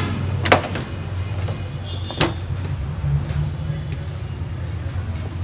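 Two sharp metallic clicks, about half a second and two seconds in, from pliers working the spring clamp on a radiator hose, over a steady low hum.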